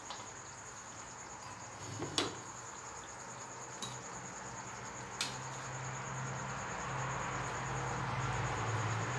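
A cricket trilling steadily, high-pitched, with three sharp clicks of a metal spatula against the wok and bowl as curry is served out. A low hum comes in about halfway through and grows.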